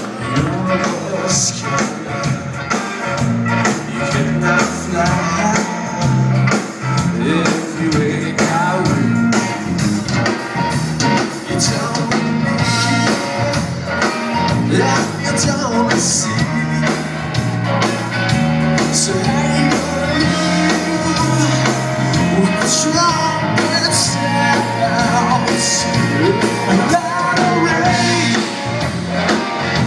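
Live blues-rock band playing loudly: electric guitar over bass and drums, with cymbal crashes and bending guitar or vocal lines.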